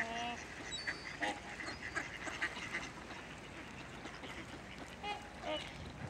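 Mallard ducks quacking: a few short calls right at the start, another about a second in, and a couple more near the end.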